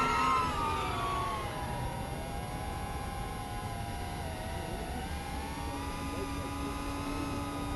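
An FPV quadcopter's electric motors and propellers whining. The pitch falls over the first second or two, then wavers up and down with throttle. A steadier, lower tone joins about six seconds in.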